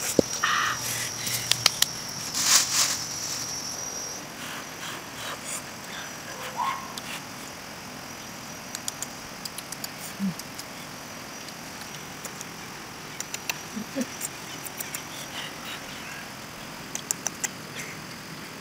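Outdoor insects chirring, a steady high buzz that is strongest in the first few seconds and fades down later, with scattered small clicks and crackles through it.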